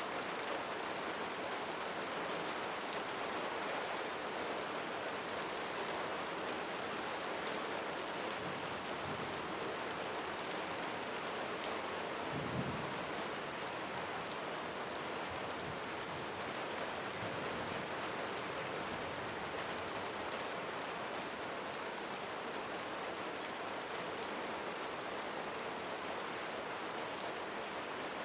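Steady rain falling on leaves, with scattered individual drop ticks, and one brief low thump a little under halfway through.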